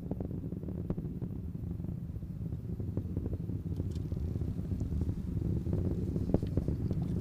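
Distant low rumble of the Falcon 9 first stage's nine Merlin engines in powered ascent, with an irregular crackle, growing slightly louder.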